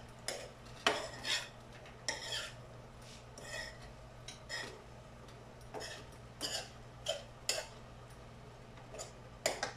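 A metal spoon scrapes and clinks against a frying pan as a bitter melon and egg stir-fry is stirred, in a dozen or so irregular short strokes.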